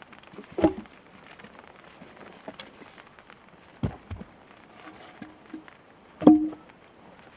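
Three sharp knocks about three seconds apart, the last one loudest, over a faint steady hiss with scattered light ticks.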